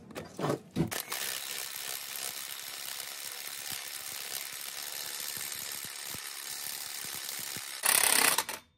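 A power tool running steadily for several seconds, driving in hub bearing mounting bolts that were first started by hand, with a louder burst near the end as it tightens down. A few short knocks come just before it starts.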